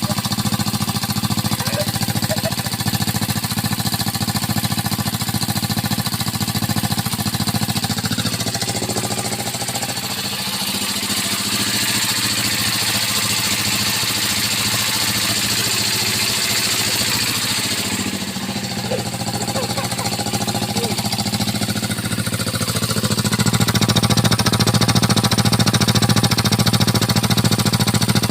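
Dongfeng single-cylinder diesel engine running through an Akrapovic racing exhaust, a loud, rapid, steady pulsing. It softens a little in the middle and grows louder again near the end.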